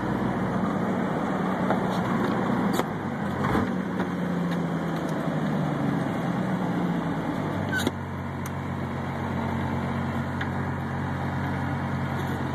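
Cummins 5.9-litre turbodiesel inline-six in a 1991 truck, running while driving and heard from inside the cab. Its note sinks slowly over a few seconds. Brief knocks come near three and again near eight seconds in, where the engine note drops and changes.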